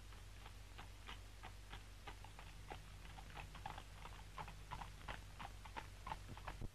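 Faint, uneven series of light clicks and taps, about three or four a second, as small objects are handled and set down on a newspaper on a table. A steady low hum runs underneath, and the clicks stop abruptly near the end.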